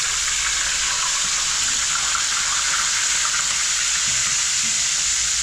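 Sea bream frying in hot oil, a steady sizzle.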